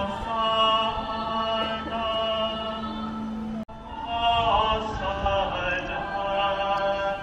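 Chanted church singing in long, held notes, over a steady low drone in the first half. It breaks off sharply about three and a half seconds in, then goes on.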